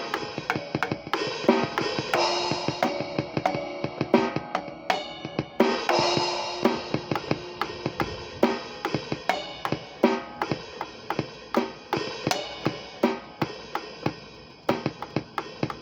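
Drum kit played freely: fast snare and tom hits with bass drum, hi-hat and cymbal crashes that swell now and then.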